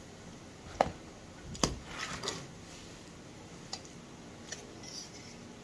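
A few sharp clicks and knocks of objects being handled on a tabletop, the loudest about a second in and again a little later, then a few faint ticks.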